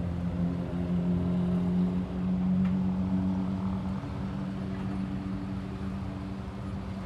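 An engine running steadily with a low, even hum whose pitch shifts slightly about two and four seconds in.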